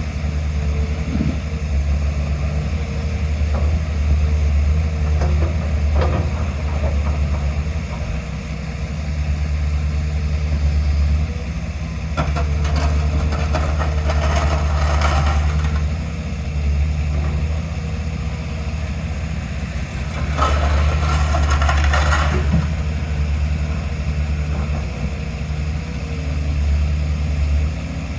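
A heavy construction machine's diesel engine running steadily at low revs. Twice, about halfway through and again later, there are stretches of clattering and scraping lasting a few seconds each.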